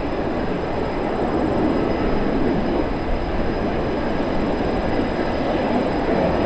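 F/A-18E Super Hornet's twin jet engines running with a steady, even roar.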